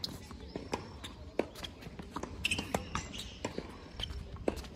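Tennis rally on a hard court: sharp pops of racket strings striking the ball and ball bounces, with scuffing footsteps in between. One hit comes right at the start and the opponent's return near the end.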